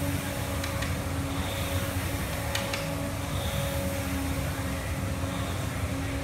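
Air rowing machine being rowed: its flywheel fan whooshes with each stroke, about every two seconds, with a short click now and then, over a steady hum.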